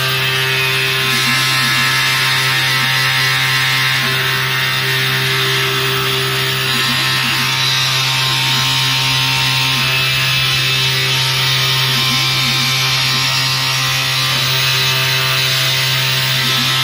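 Desktop CNC engraver running steadily, its spindle motor humming and whining under a hiss of cutting. A lower tone wavers up and down in pitch on and off as the axis motors drive the head.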